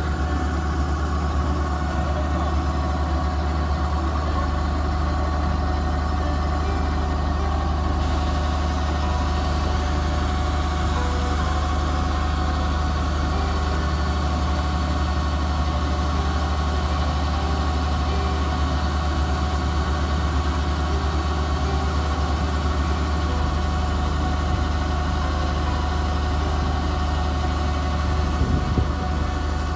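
Kubota DC-68G combine harvester running steadily while its grain auger unloads paddy. A constant deep diesel hum sits under several steady whining tones.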